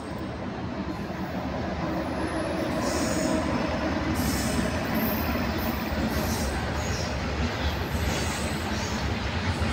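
WAG-9 electric freight locomotive and its covered hopper wagons rolling past, a steady rumble that grows louder about three seconds in. Intermittent high-pitched wheel screeches come and go over the rumble.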